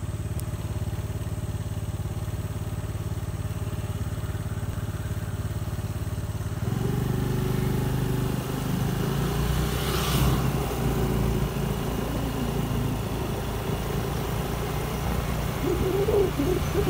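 Honda Activa 5G scooter's small single-cylinder engine running steadily on the move, with road and wind noise. The sound grows louder and rougher about seven seconds in, and another vehicle sweeps past about ten seconds in.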